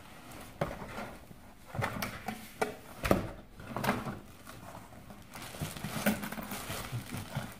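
Large cardboard box being opened: the lid scraping and rubbing as it slides off, with irregular knocks of cardboard against cardboard. Near the end, the plastic wrap around the contents rustles as it is handled.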